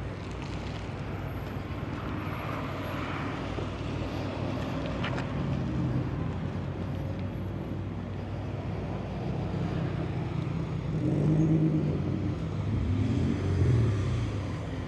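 Car traffic: engines running close by with a steady low hum, and a car's engine rising in pitch as it pulls away, twice in the second half.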